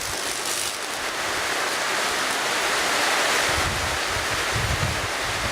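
Wind buffeting the microphone, with low gusts stronger in the second half, over a steady even hiss.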